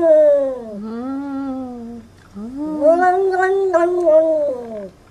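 Domestic cat giving long drawn-out meows: one falls away in pitch about a second in, a lower shorter one follows, then a long wavering yowl that stops just before the end.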